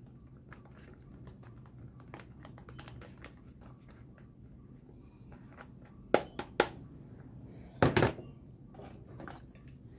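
Handling of hard plastic toys: faint clicks from the keypad of a plastic toy telephone, two sharp plastic taps a little after six seconds, and a louder knock near eight seconds as the toy phone is put down among plastic toy guns, over a low steady hum.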